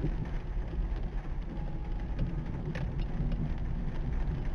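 Steady low rumble of a car's engine and tyres heard from inside the cabin, with a few faint clicks.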